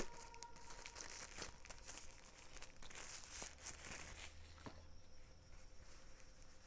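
Faint rustling and crinkling of packaging being handled, with scattered small clicks.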